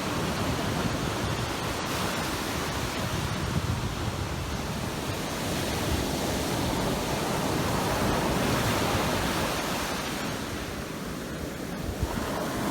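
Ocean surf washing onto a beach, a steady roar of breaking waves that swells and eases, with some wind on the microphone.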